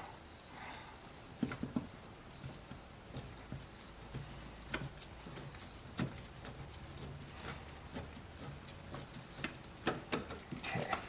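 Faint, scattered clicks and taps of a wrench and metal fittings as the brake master cylinder's brake lines and mounting are undone, with a few brief high squeaks.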